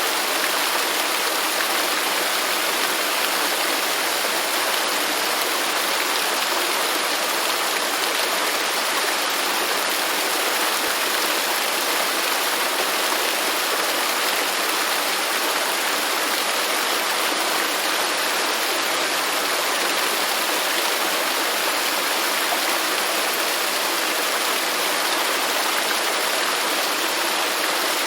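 Waterfall: falling water rushing steadily, a bright, even hiss with little deep rumble.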